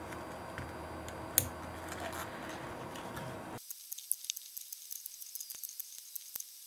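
Gloved hands working small neodymium magnets into a hub motor's steel rotor ring: steady handling noise with one sharp click about a second and a half in. After an abrupt drop to quiet, a few faint, separate clicks of the magnets being handled.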